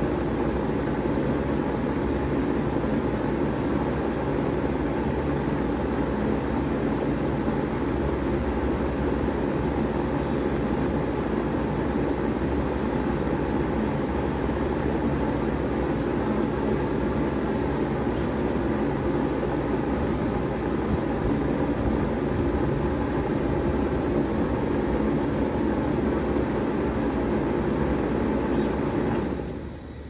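2001 Bard 3-ton wall-mounted heat pump running steadily in heat mode, a low hum under a broad rush of fan and airflow noise. Near the end the unit shuts down and the sound drops off sharply.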